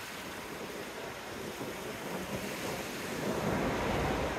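Sea surf washing on the beach with wind buffeting the microphone, the noise swelling louder near the end.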